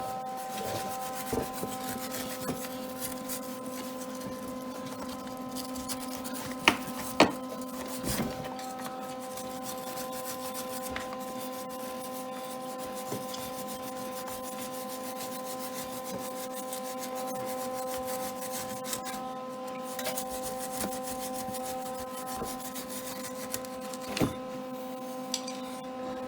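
Welding on an ATV's steel frame: a steady hum made of several even tones under a fine, continuous crackle. A few sharp knocks come about a quarter of the way in and again near the end.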